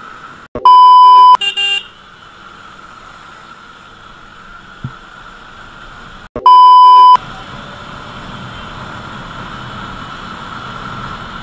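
Two loud, flat 1 kHz censor bleeps, each under a second long and about six seconds apart. They sit over the steady riding noise of a motorcycle.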